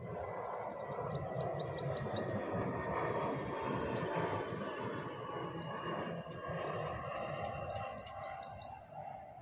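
Jet airliner passing low overhead: a steady rush of engine noise that swells toward the middle and eases off near the end. Birds chirp over it in quick runs of short rising notes and high trills.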